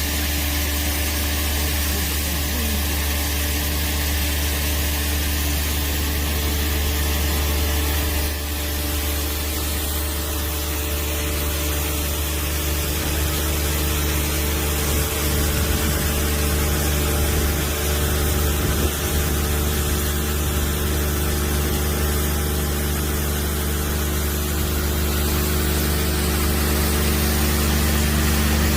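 Engine of a compact articulated multipurpose loader running steadily while clearing snow, with a constant hiss over its hum.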